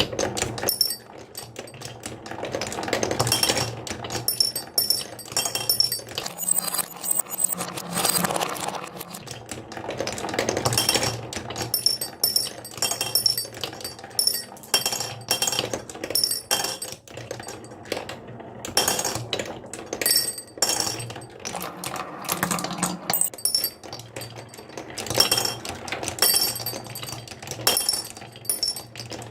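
Marbles rolling and clattering down a marble run, with constant clicks and frequent bright, ringing clinks as they strike the track and each other.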